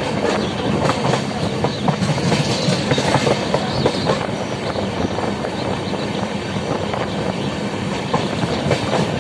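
Jamalpur–Malda Intercity Express running at speed, heard from aboard the coach: a steady rumble of wheels on rail with frequent clicks and clatter over the track.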